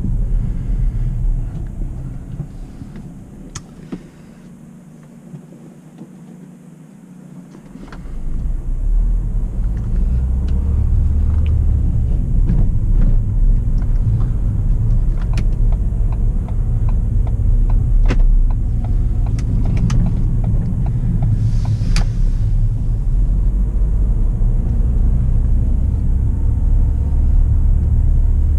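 Ford New Fiesta heard from inside the cabin: low engine and road rumble that drops away for a few seconds, then builds again about eight seconds in as the car gets moving, and stays steady from there. Scattered light clicks and rattles run through it, with one sharper knock a little past twenty seconds in.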